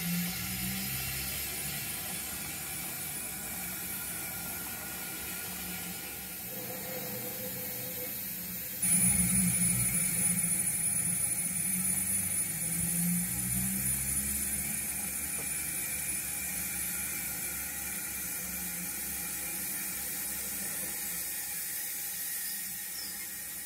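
O gauge model steam locomotives running slowly on the layout, with a steady mechanical whir and the rumble of wheels on the rails. About nine seconds in, the sound jumps louder and a steady high whine comes in, then slowly fades.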